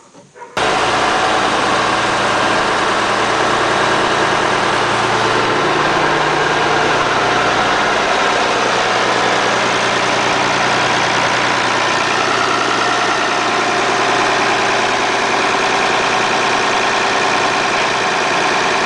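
Oliver 1850 tractor engine running steadily, loud and close, while the Schwartz front loader's bucket is worked hydraulically. The engine sound cuts in abruptly about half a second in.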